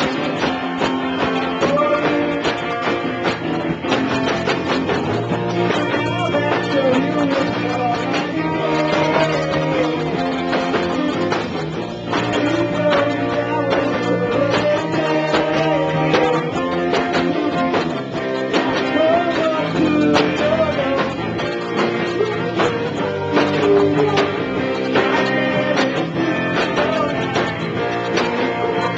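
A live rock band playing, with guitar to the fore and a melody line that slides up and down above it.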